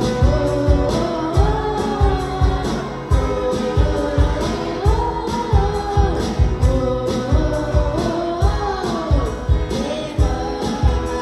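A sung gospel melody with instrumental backing and a steady low beat.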